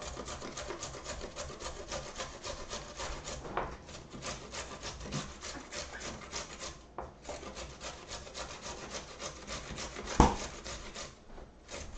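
A carrot being grated on a metal box grater: rapid rasping strokes, several a second, with short breaks about seven and eleven seconds in. A single sharp knock just after ten seconds in is the loudest sound.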